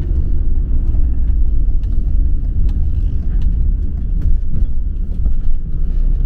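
Motorhome driving slowly, heard from inside the cab: a steady low rumble of engine and road noise, with a few light clicks and rattles.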